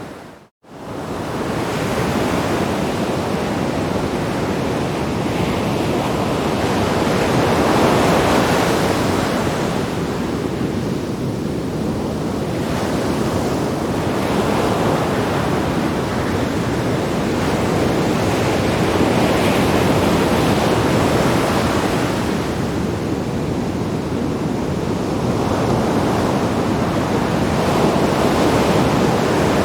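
Sea waves breaking on rocks: a steady wash of surf that swells and eases every several seconds. The sound drops out briefly about half a second in.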